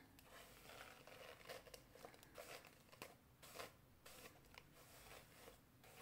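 Faint, irregular scratchy rustles of a hairbrush dragged through wet hair to part it down the middle.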